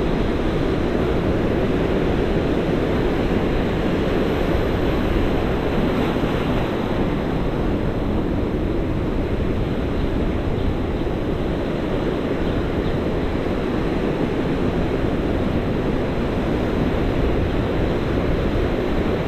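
Ocean surf breaking and washing around rocks, a steady even rush, with wind on the microphone.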